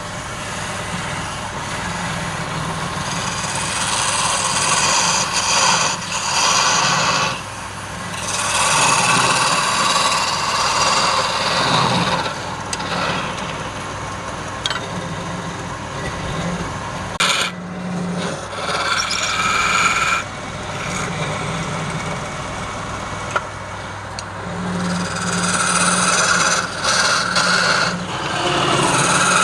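Wood lathe running with a low steady hum while a tool is held against the spinning workpiece, the scraping noise swelling and easing off in passes every few seconds.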